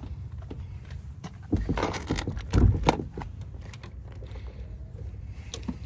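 Handling noises of opening a Mk5 VW Golf's bonnet: clicks and knocks from the release and catch behind the grille badge, with keys jangling in hand. The loudest is a heavier thump about halfway through.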